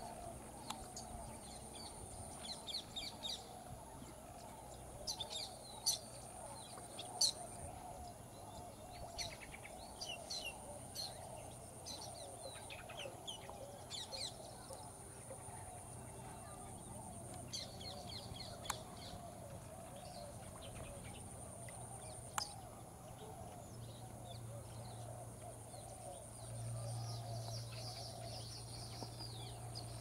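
Wetland ambience: many birds calling and chirping over a dense, steady background chorus, with a high insect buzz that stops and starts. A low hum comes in near the end.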